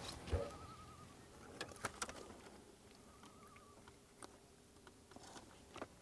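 Faint, scattered clicks and knocks as a landed smallmouth bass is handled in a landing net in a fishing boat. A faint wavering whistle comes three times in the background.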